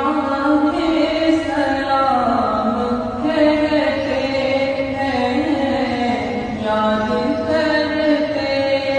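Ringtone music: a solo voice singing or chanting a slow melody in long held notes that glide between pitches.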